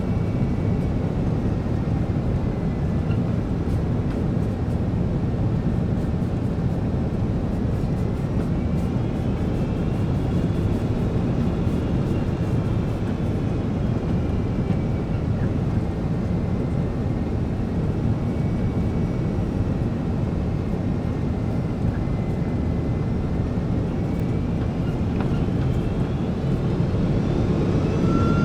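Jet airliner cabin noise on a landing approach: a steady low rumble of airflow and engines, with faint high engine whines that slowly rise and fall as thrust changes.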